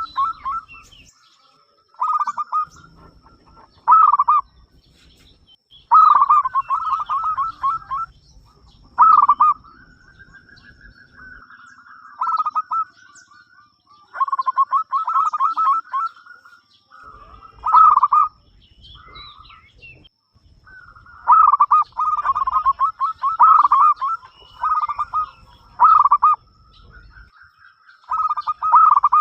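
Local perkutut (zebra dove) cooing: short phrases of quick staccato notes, repeated every couple of seconds with brief gaps.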